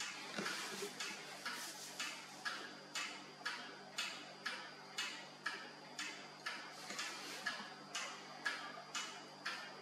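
Steady, even ticking at about two ticks a second, each tick sharp with a short ringing tail, over a faint low hum.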